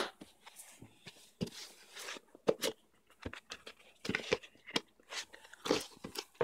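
Sticky tape being peeled off a cardboard tablet box, with the box being handled: a run of irregular tearing and crinkling scrapes.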